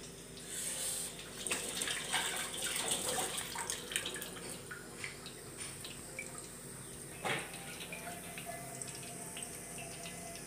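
Fine boondi (gram-flour batter drops) frying in hot ghee in a kadhai: a continuous sizzle with fine crackling, busier in the first few seconds, and a single sharp knock about seven seconds in.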